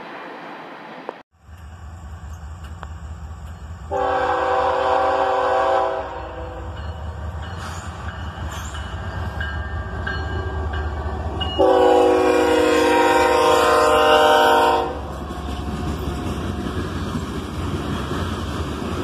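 Diesel locomotive rumbling as it approaches, sounding its multi-note air horn: a two-second blast about four seconds in and a longer, louder three-second blast about twelve seconds in.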